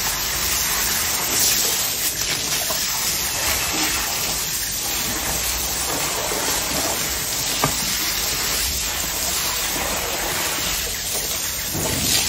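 Steady rush of running water, like a hose or tap flowing, with no change in level.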